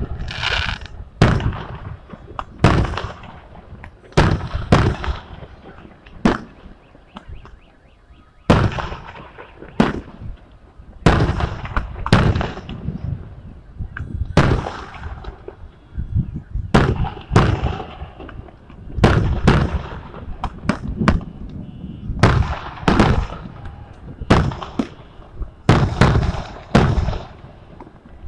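Aerial fireworks shells bursting overhead: a long series of sharp booms at irregular intervals of about one to two seconds, each followed by a short echoing tail.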